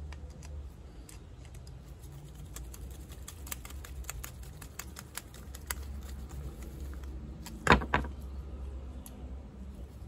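Small clicks and taps of a flathead screwdriver and metal carburetor parts being handled as the main jet is screwed back into a small-engine carburetor, with a louder double clack about eight seconds in. A steady low hum runs underneath.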